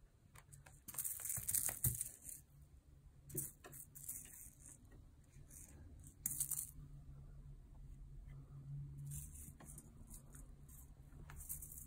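A kitten's toys rustling and rattling in short bursts, four or five times, with light knocks and clicks in between as they are batted about.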